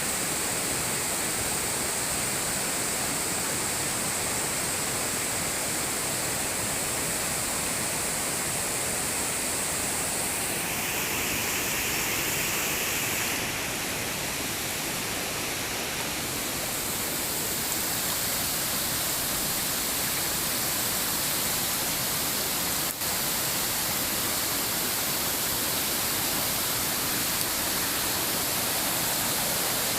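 Steady rushing of flowing water, with a hissing upper edge whose tone shifts for a few seconds partway through and a single short click about two-thirds of the way in.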